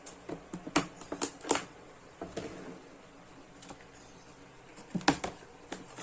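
Latches of a hard plastic carrying case clicking open and the case lid being handled: a cluster of sharp clicks and knocks in the first second and a half, a few softer ones a moment later, and more knocks about five seconds in.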